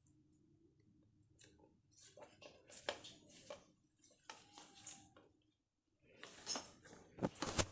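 Banana leaf rustling and crackling in the hands as it is rolled up around a fish and handled, in short spells, with the loudest, sharpest crackles near the end.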